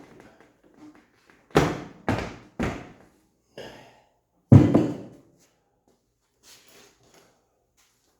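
Jeep soft-top door's bent tube frame thunking against the body as it is forced into place: three knocks in quick succession, a weaker one, then a louder thunk. The bent frame will not seat.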